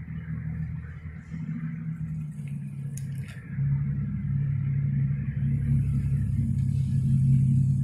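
Road traffic: a steady low engine hum from cars on the street, growing louder about three and a half seconds in, with a higher hiss near the end.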